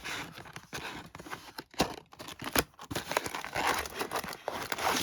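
Plastic shrink-wrap and cardboard of a trading-card blaster box crinkling and tearing as it is opened, with a couple of sharp clicks in the middle.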